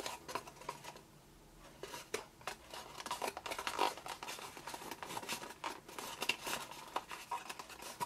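Scored cardstock box being pressed and re-creased by hand, its fold lines pushed inward: irregular crackling and rustling of stiff card, with a brief lull about a second in.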